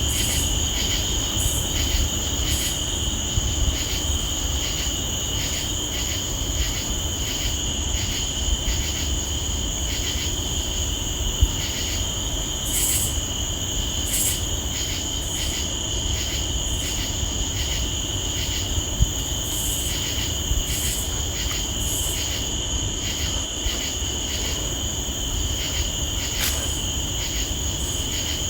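Crickets and other night insects singing: a steady high-pitched trill with regular chirps about twice a second, over a low steady rumble of background noise. A couple of brief clicks stand out.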